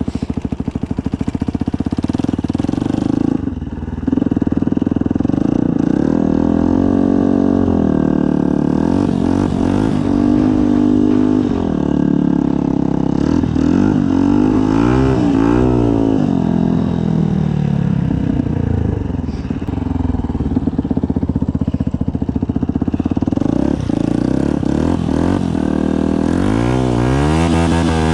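Yamaha WR125's single-cylinder four-stroke engine through a Black Widow aftermarket exhaust, running under way with the revs rising and falling as the throttle is worked. The revs drop briefly about three and a half seconds in, and near the end they climb and fall in quick sweeps.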